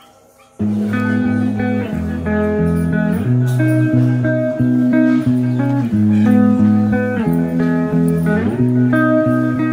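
Background instrumental music led by guitar, starting suddenly about half a second in, with a strong low bass line under changing chords.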